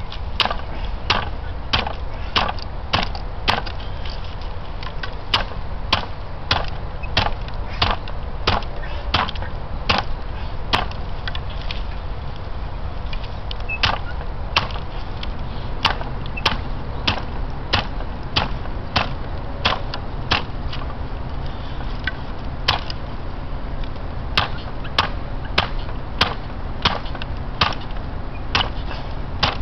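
Wooden hand hemp break being worked: the hinged upper jaw is slammed down again and again onto a bundle of tough hemp stalks. It makes sharp wooden knocks and cracks about two a second, with a few short pauses, as the woody core is broken away from the bast fibre.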